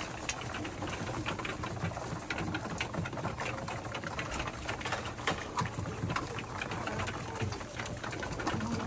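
A flock of domestic pigeons pecking feed off a hard floor: a dense, rapid, uneven patter of beak clicks, with some low cooing underneath.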